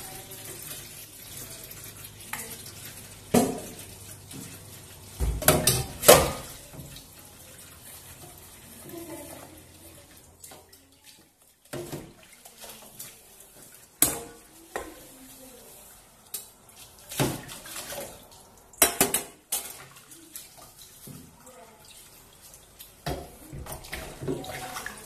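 Washing up a stainless steel pot in a steel sink: a tap runs and splashes while the pot is scrubbed, with several sharp metal clanks of pot and handle against the sink, the loudest about six seconds in.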